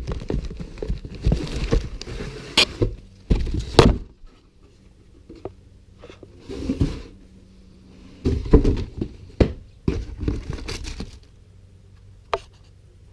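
Packaging being handled and opened by hand: crinkling, rustling and a number of sharp knocks and clicks, in two busy spells with a quieter stretch between.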